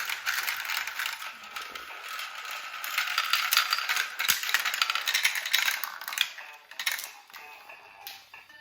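Plastic balls rolling and clattering down the tracks of a VTech Marble Rush marble run: a dense, steady rattle of small clicks that thins out to a few scattered clicks after about six and a half seconds.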